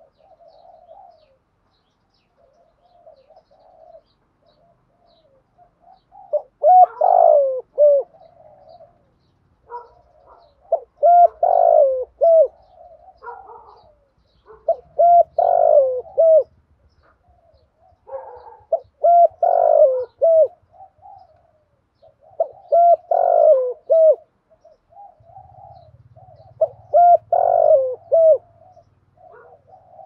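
Spotted dove cooing: six loud phrases of hooked notes about every four seconds, with softer cooing in between. This is the persistent 'thúc gù' cooing that dove keepers use to rouse other doves.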